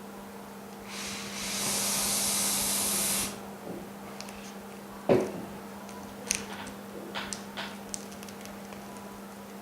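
A pressurised spray hissing steadily for about two seconds, starting about a second in, during screen repair and cleaning work. A sharp tap follows about five seconds in, then a few light clicks, over a steady low hum.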